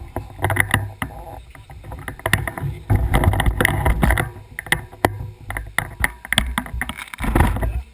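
A mountain bike ridden over a rough, muddy trail: wind buffets the microphone in a low, uneven rumble, while the bike's frame and parts clatter in many irregular knocks and rattles.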